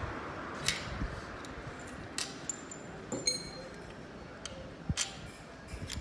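Metal parts and tools clinking and tapping against a Volkswagen manual transaxle as it is taken apart by hand: about half a dozen irregular clinks, one a little after three seconds in with a brief metallic ring.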